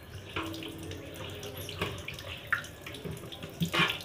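Water running from a tap into a sink, with splashing and short knocks from things being handled in it; a louder splash comes near the end.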